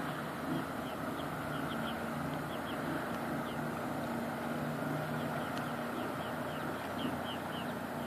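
Steady low drone of distant motorboats on the water, with short high chirps from small birds repeating in quick groups of two or three.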